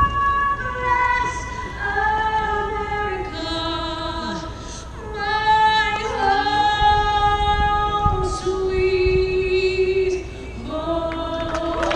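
A woman singing solo and unaccompanied, holding long notes with vibrato that are carried across a large outdoor crowd.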